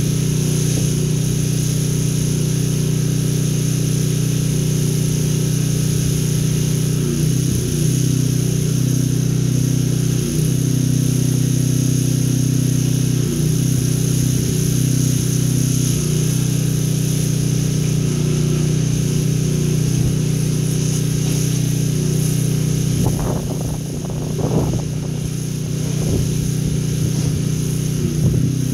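Pressure washer's engine running steadily at a constant speed, with a short dip in level and a few faint knocks about 23 seconds in.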